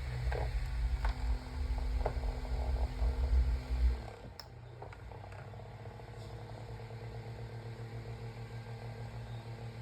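Holmes Blizzard desk fan running without its grill for a test run: a loud low rumble of air and motor hum for about four seconds, with a few light clicks. Then the level drops suddenly and the fan carries on with a quieter, steady hum that pulses lightly.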